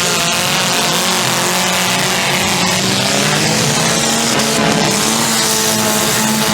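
Engines of several demolition derby cars running together, a loud, steady mix of engine notes.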